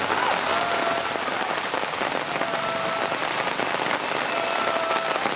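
Heavy rain falling steadily, a dense even hiss of drops on water. Faint short held tones recur every couple of seconds above the hiss.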